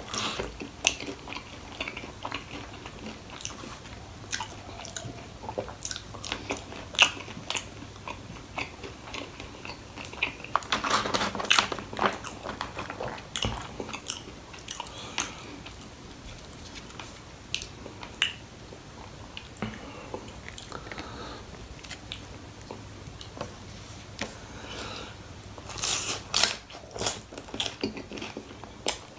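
A person biting and chewing loaded chicken popcorn (fried chicken pieces and fries) up close, a string of sharp crunches and mouth clicks. There is a denser burst of crunching about eleven seconds in and another near the end.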